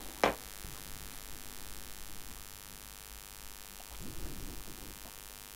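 A single sharp clink of a small glass against the countertop about a quarter second in, over a steady low hum and hiss. A faint sip of spirit from the glass about four seconds in.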